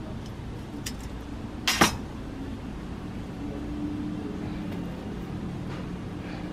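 Handling noise as a tape measure is taken off a coarse black scourer pad and the pad is handled: a few light clicks, then one short loud rasp a little under two seconds in, followed by soft rustling, over a steady low hum.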